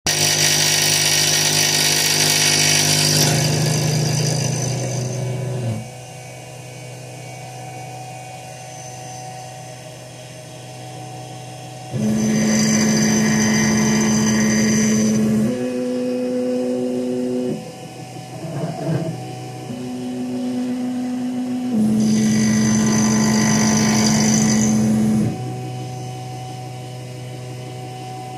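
Small CNC milling machine running a 10 mm end mill through quarter-inch steel bar, the spindle motor humming steadily. The cut gets much louder, with a hissing, high-pitched cutting noise, for a few seconds near the start, again about 12 seconds in and again about 22 seconds in, and is quieter between.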